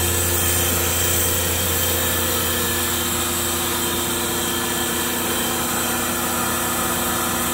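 Hans Wahli Wahli-Feeder running with its vacuum pump and transport drive both switched on: a steady electric hum with an even hiss.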